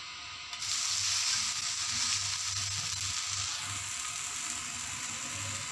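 Spinach dosa sizzling on a hot dosa pan just after being flipped, the freshly turned side frying. The sizzle starts about half a second in and slowly eases off toward the end.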